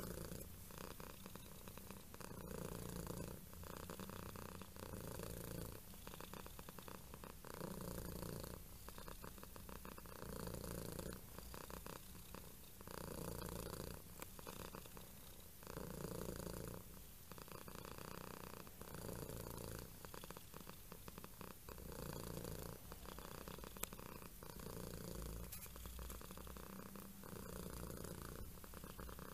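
A domestic cat purring steadily, the purr swelling and fading about every two seconds.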